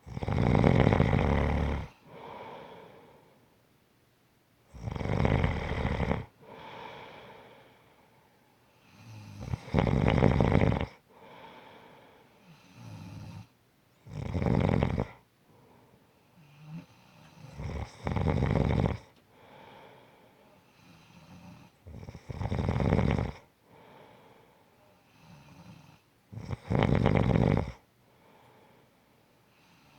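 Snoring in a slow, even rhythm: a long snore about every four seconds, seven in all, each followed by a softer, shorter breath before a short lull.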